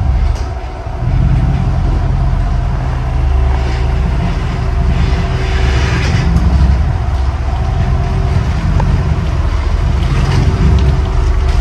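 Off-road 4x4's engine running steadily at low revs, with brief swells of hissing noise over it.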